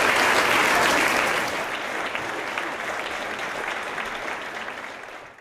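Audience applause, many hands clapping together, fading away over the last few seconds.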